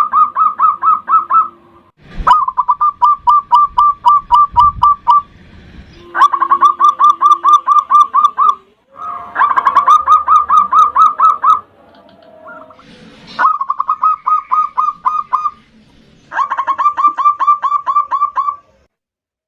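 Zebra dove (perkutut) cooing in about six bouts of rapid, evenly spaced staccato notes, roughly five notes a second. Each bout lasts two to three seconds, with brief pauses between them.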